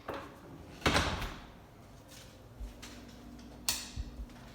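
A few sharp clicks and knocks, the loudest about a second in and another near the end, with a faint steady low hum coming in a little past halfway.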